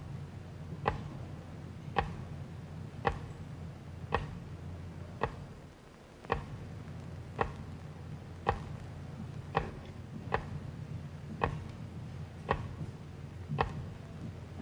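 Slow, evenly spaced ticking, about one sharp tick a second, like a clock, over a low steady hum.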